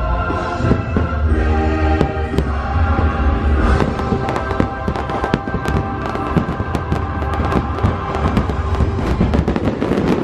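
Fireworks bursting and crackling over music with heavy bass; the cracks thicken into a dense, rapid crackle from about four seconds in.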